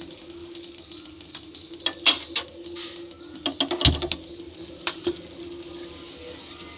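A pot of water with ginger, cinnamon, tulsi leaves and cloves boiling into a kadha, with a steady hiss and low hum. Sharp utensil clinks against the pot come about two seconds in, a quick cluster of them with a dull knock around four seconds, and two more near five seconds.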